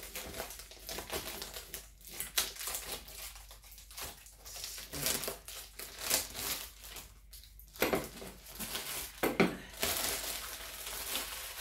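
Clear plastic packaging crinkling and rustling on and off as a bundle of white clothes hangers with metal hooks is unwrapped and handled.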